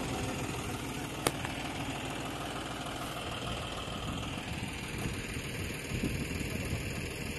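Tractor diesel engine idling steadily, with one sharp click about a second in.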